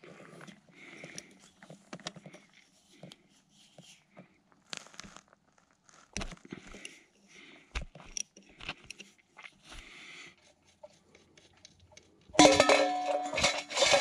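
Small metallic clicks and scrapes of a combination wrench and hands working an oil plug on a riding mower's transmission housing. Near the end a stainless steel bowl is knocked into place on gravel, clanging loudly and ringing on.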